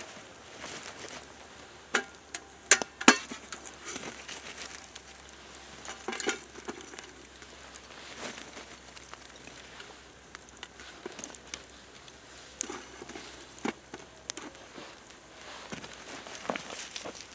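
Hot coals clicking and scraping as they are picked up with two wooden sticks and dropped onto the lid of a titanium Dutch oven, over the steady crackle and hiss of a campfire bed. Scattered sharp knocks, the loudest two to three seconds in.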